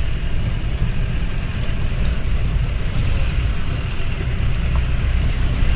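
Off-road jeep's engine running steadily under way on a rough dirt track, a constant low rumble heard from on board the vehicle.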